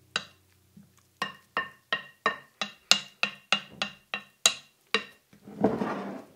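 Wooden spoon knocking against the side of a glass mixing bowl while stirring grated zucchini: about a dozen ringing clinks, roughly three a second. Near the end comes a brief scraping noise.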